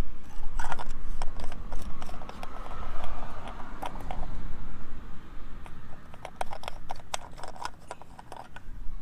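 Scattered small metallic clicks and knocks of hand work on a Harley-Davidson's oil tank dipstick and filler cap, the dipstick being wiped, reinserted and pulled to check the oil level. A steady low rumble runs underneath.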